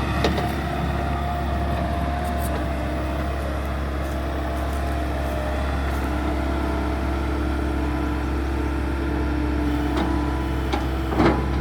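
Compact track loader's diesel engine running steadily at a constant speed, with a short sharp knock near the end.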